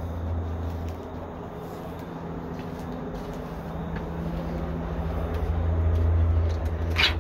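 A steady low mechanical hum, like a motor or engine running, which grows a little louder in the second half, with a brief scraping rustle near the end.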